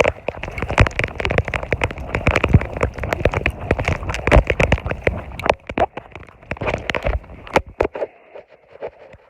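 Dense, irregular crackling and rustling, like dry leaves, twigs and brush crunching underfoot and brushing past someone moving quickly. It thins out about eight seconds in.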